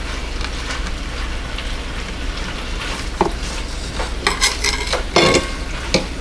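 Bacon frying in a pan: a steady sizzling crackle, with a few sharper clicks about three to five seconds in.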